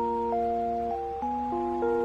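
Background music of soft, sustained chords, the notes changing about every half second.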